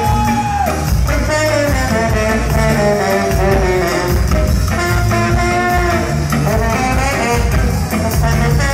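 Live ska band playing, with a horn section of saxophones, trumpet and trombone over bass guitar and drums.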